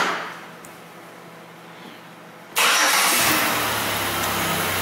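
A sharp clack at the very start, then about two and a half seconds in the 2007 Chevrolet Impala's 3.5-litre V6 is cranked and starts, settling into a steady idle.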